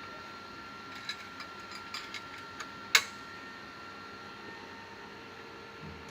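µ-Grinder 96 laboratory seed grinder running with a steady hum and scattered light ticks and clicks, and one sharp click about three seconds in.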